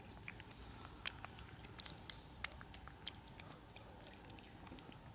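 Cats chewing chunks of wet cat food in gravy, with faint, irregular wet smacks and clicks of jaws and tongues.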